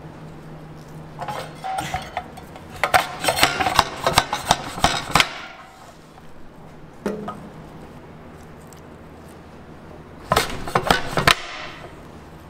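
Clattering and clinking of stainless-steel kitchen gear, a steel bowl and a commercial wire tomato slicer, as tomatoes are handled and sliced. It comes in two bursts of quick knocks, the first lasting about four seconds and a shorter one near the end, with a single knock in between.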